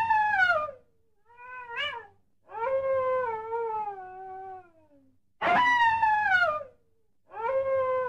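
Coyote howling: a series of about five drawn-out calls, most sliding down in pitch, one short one rising, the longest in the middle.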